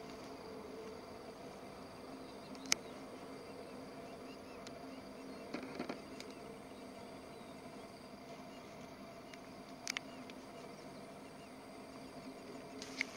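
Faint steady field ambience: a low hum with insects buzzing, broken by a few short sharp clicks, about three seconds in, around six and ten seconds, and near the end.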